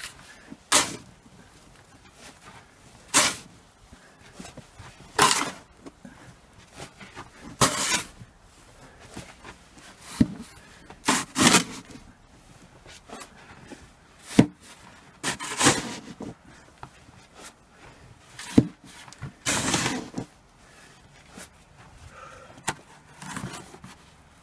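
Snow shovel scraping into deep fresh snow and tossing it, one short scooping stroke every two to three seconds.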